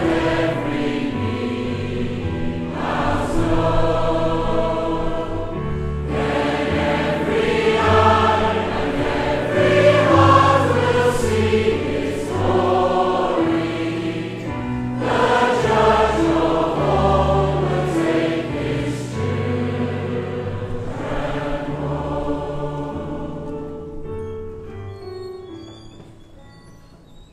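A large congregation singing a hymn together over steady low instrumental accompaniment, fading out at the end.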